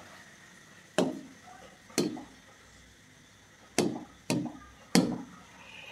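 Stylus tapping on an interactive smart-board screen: five sharp taps, two about a second apart, then three closer together near the end.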